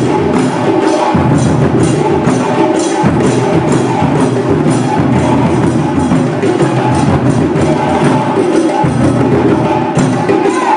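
Percussion music with a fast, steady beat of sharp knocking strokes over a dense, continuous drum sound.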